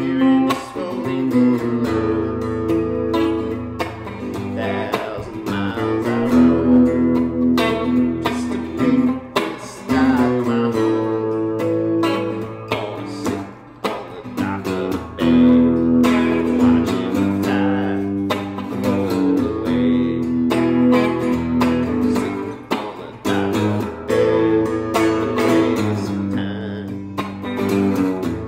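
Fender Starcaster semi-hollow electric guitar played through a small Yamaha amp: a chord-based song, strummed and picked, with a few brief breaks between phrases.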